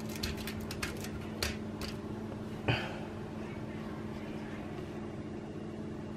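Aluminium foil on a baking tray being handled, with light crinkles and taps in the first two seconds and one louder crackle a little under three seconds in, over a steady low mechanical hum from a kitchen appliance.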